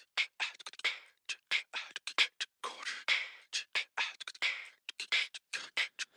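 Music track with beatboxed percussion: a quick, even rhythm of hissing snare and hi-hat sounds and clicks made with the mouth, with no bass or melody.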